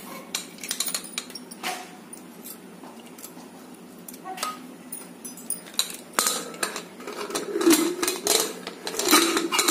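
Metal spoon clinking and scraping against the inside of an aluminium pressure cooker as soaked dried peas and potatoes are stirred. From about six seconds in come louder, denser metal clanks and grating as the cooker lid is set on and closed.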